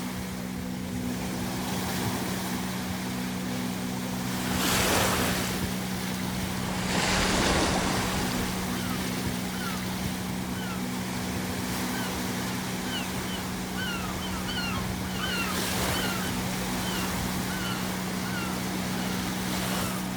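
Ocean waves breaking in surges against the shore, with a run of short, high seagull cries in the second half. A steady low hum sits underneath.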